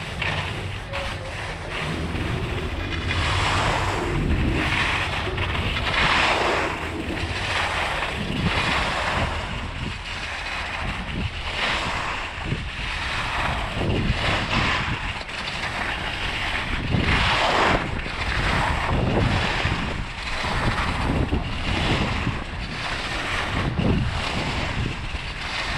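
Wind buffeting a GoPro's microphone while skiing downhill, a steady low rumble, with skis scraping over packed snow in swells of hiss every second or two as the turns are linked.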